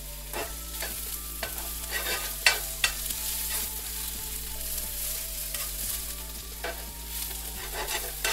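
Sliced onions sizzling in oil in a cast iron pan on high heat. A spatula scrapes and turns them over and over, with the sharpest scrape about two and a half seconds in.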